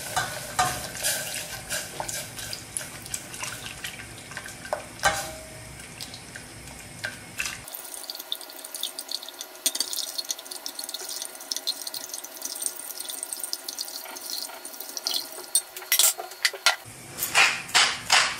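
Milk pouring in a stream into a stainless steel saucepan while a wire whisk stirs it into the roux, with many light clicks and scrapes of the whisk against the pot.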